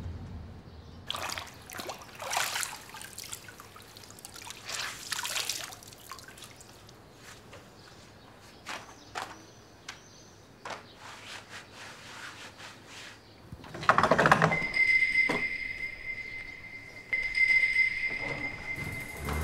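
Water pouring and trickling, with scattered short splashes and clinks and a louder splash about fourteen seconds in. From then on a steady high-pitched tone sounds.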